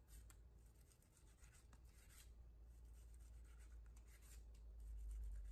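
Faint, irregular scraping strokes of a cleaver blade slicing through raw grass carp fillet and across a wooden chopping board, under a low steady hum.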